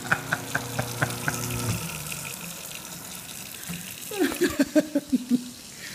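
Garbage disposal motor humming as it grinds dry ice, with rapid clicks about four a second, cutting off about two seconds in. The faucet then keeps running water into the sink, and a few short vocal sounds come near the end.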